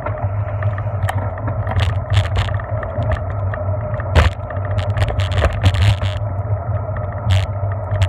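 Bicycle rolling along a paved road, picked up by a camera mounted on the bike: a steady low rumble with frequent short rattles and knocks as it rides over the road surface.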